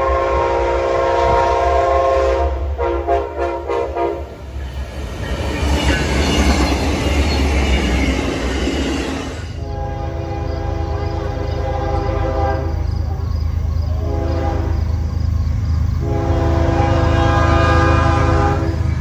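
Locomotive air horn blown in several long blasts for a horn show, over the steady low rumble of the train. Between the first and second sets of blasts comes a stretch of rushing rail noise as the train passes.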